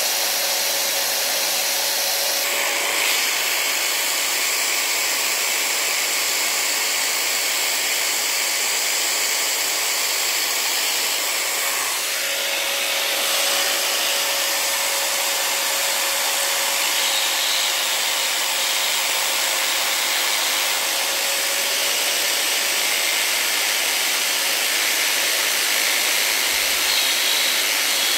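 Electric drill running steadily with a carving bit cutting into a wooden hiking stick: a constant motor whine over the hiss of the bit grinding the wood. The motor briefly falters about twelve seconds in, then runs on.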